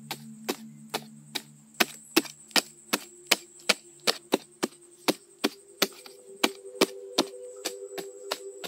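Wooden digging stick jabbing into hard-packed soil: a steady run of sharp strikes, about two or three a second.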